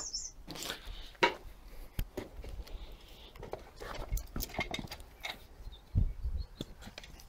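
Footsteps and scuffing over rough ground, with scattered clicks and knocks and low thumps from the hand-held camera. A bird chirps briefly at the very start.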